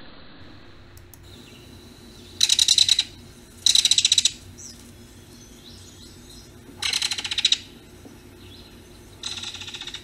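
Belted kingfisher giving its dry, rapid rattle call four times, each rattle under a second long.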